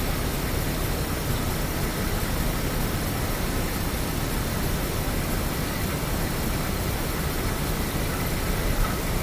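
Steady wind rushing on the microphone: an even hiss with an unsteady low rumble.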